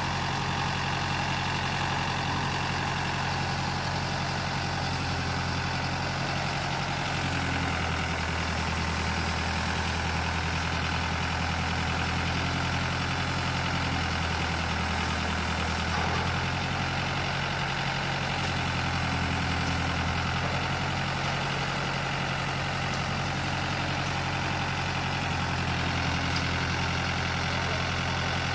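Boom truck's engine running steadily while it powers the truck-mounted crane, its low hum shifting in pitch a few times as the boom works.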